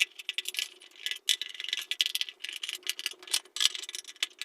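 Phillips screwdriver turning screws out of a mixer grinder's back cover: a quick, irregular run of clicks and rattles.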